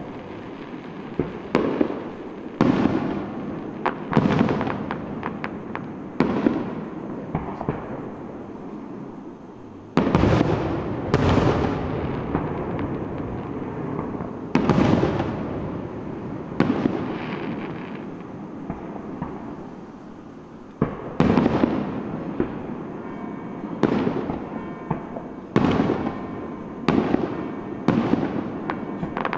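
Aerial fireworks shells bursting one after another, a boom every second or two, each dying away in a long echo. The loudest come about ten and twenty-one seconds in, and near the end quicker, sharper cracks crowd together.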